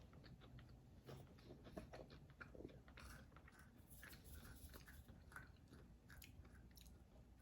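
Faint chewing and crunching of a hard, crispy MRE oatmeal cookie: many small, irregular crunches and mouth clicks.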